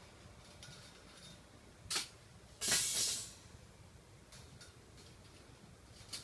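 Trapped feral cat hissing: a short hiss about two seconds in, then a louder, longer hiss about half a second long.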